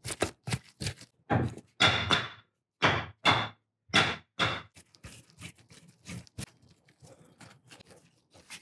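Metal clinks and knocks as screws are run into the back of a six-jaw lathe chuck with a hand tool. About a dozen sharp strikes in the first five seconds, several ringing briefly, then lighter clicks.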